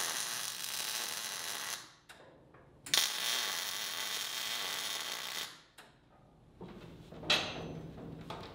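Wire-feed (MIG) welding arc crackling steadily as the top halves of steel hinges are welded to a crossbeam. It comes in two runs of about two and a half seconds each, with a short pause between.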